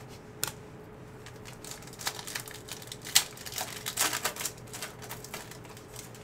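Foil trading-card pack wrappers crinkling and tearing as packs are handled and ripped open: a run of sharp crackles, loudest about three to four seconds in.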